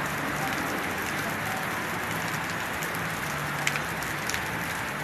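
Heavy rain pouring onto a flooded street: a steady hiss with scattered sharper drop ticks.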